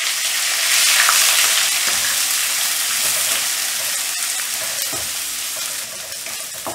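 Chopped onions sizzling in hot oil in a nonstick kadai, stirred with a bamboo spatula that gives a few light taps and scrapes against the pan. The sizzle is loudest about a second in and eases off gradually.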